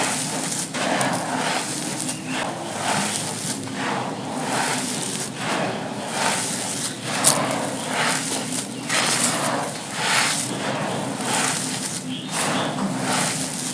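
Dry, gritty sand cones being crushed and crumbled, giving a run of gritty crunches about every second with one sharper crack about seven seconds in.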